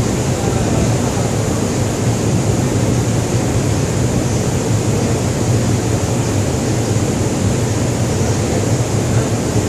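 Steady, loud drone of a ship's machinery with a constant low hum and an even hiss over it.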